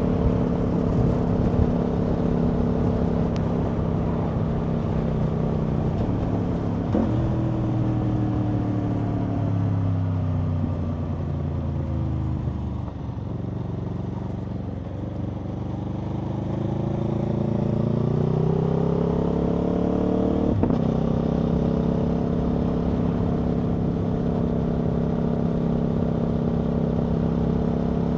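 Aprilia Tuono V4 motorcycle's V4 engine heard from the rider's seat, running steadily at cruise. About seven seconds in the pitch changes suddenly and then falls as the bike slows. It then rises again under acceleration, drops abruptly at a gear change about twenty seconds in, and settles back to a steady cruise.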